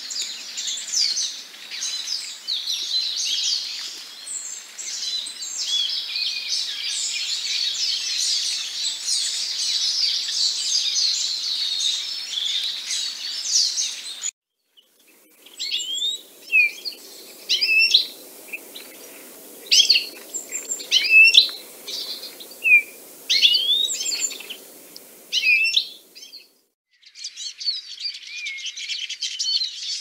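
Eurasian siskin song: a dense, continuous high twittering for about the first half, then after an abrupt break a run of separate short chirps and trills over a faint low hum, and dense twittering again near the end.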